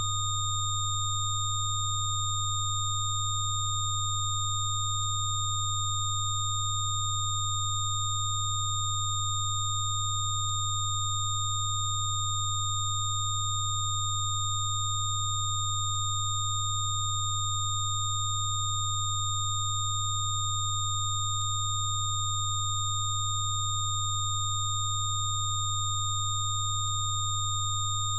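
Electronically generated Rife-frequency tones: several steady pure tones sounding together without change, the loudest a low hum with fainter, higher steady whistles above it.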